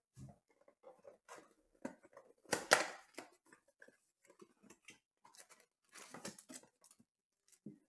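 Cardboard blaster box of Panini Prizm football cards being handled and torn open: scattered scrapes and rustles, with a louder rip of the cardboard nearly three seconds in, then more paper and card rustling around six seconds in as the contents are pulled out.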